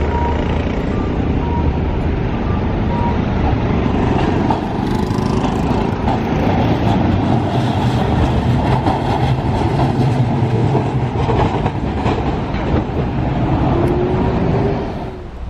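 Streetcar running through a tram-track junction, its wheels clicking over the rail joints, with a low motor hum and cars passing on the road. The clicks come thickest through the middle.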